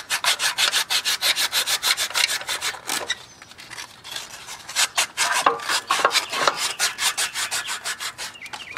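A 1-inch strip of belt-sander abrasive wrapped around an engine crankshaft and pulled rapidly back and forth, rasping at about six strokes a second, scouring corrosion off the shaft. The strokes pause for a moment about three seconds in, then start again.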